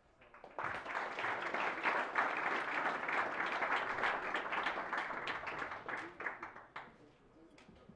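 Audience applauding: many people clapping together. It starts about half a second in, dies away near the end, and a few last claps follow.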